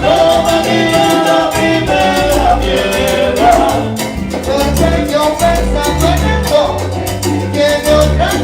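Salsa band playing an instrumental passage: brass or melody lines over a steady bass pattern and Latin percussion.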